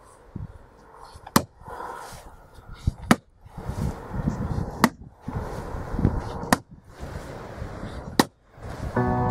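Firewood being chopped: five sharp blows at a steady pace, about one every second and a half to two seconds, with rustling and shifting between them.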